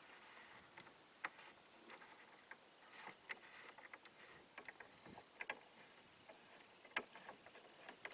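Near silence with scattered light clicks and taps, the sharpest about seven seconds in, from the small cannon and its C-clamp being handled and set up on a table.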